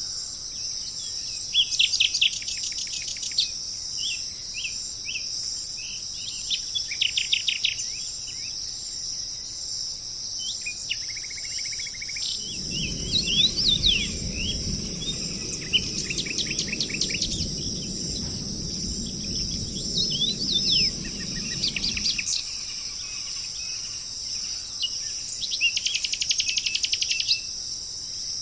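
Songbirds singing in short, rapid trills that recur every few seconds, over a steady high-pitched insect chorus. A low rumble comes in about twelve seconds in and stops about ten seconds later.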